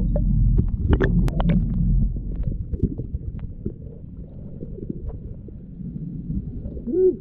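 Muffled low rumble of wind and water with scattered knocks and clunks as a wire lobster trap is hauled up over the side of a wooden boat, the sharpest knocks about a second in.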